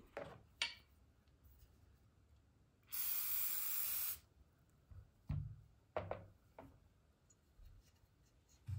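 WD-40 aerosol can spraying a steady hiss for about a second, lubricating the action of a stripped .22 rifle. A few short knocks and clicks of the metal rifle parts being picked up and handled come before and after it.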